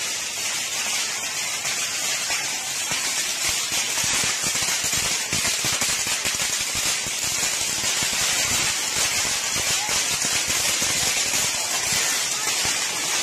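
Fireworks burning off: a steady, loud hiss with dense rapid crackling and popping that goes on without a break.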